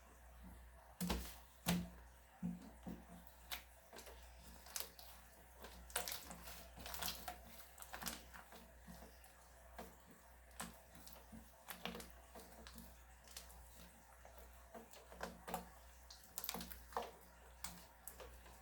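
Slime being squeezed and poked by hand, giving irregular wet clicks and small pops.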